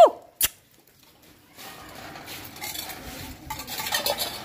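Dogs eating from metal bowls and a steel basin: food and tongues scraping and clinking against the metal. This builds up about a second and a half in and runs on as a continuous clatter. It is preceded by a short sharp sound and a click at the start.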